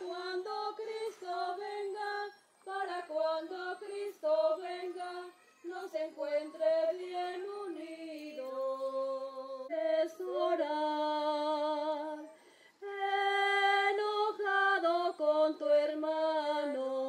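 A woman singing a communion hymn unaccompanied, one melody line with vibrato, sung in phrases broken by brief pauses.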